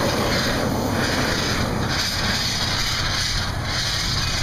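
Handheld dry chemical fire extinguisher discharging in a loud steady hiss, broken by a few brief gaps, over the low rumble of a large open fire.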